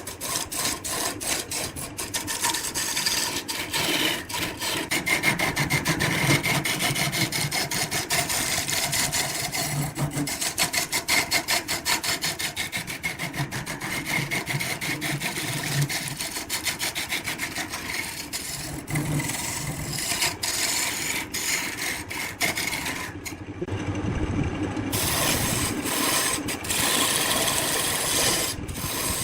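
Wood being cut on a lathe: a turning tool scraping against the spinning workpiece with a rapid, dense ticking. The high hiss drops out briefly about 23 seconds in, then returns.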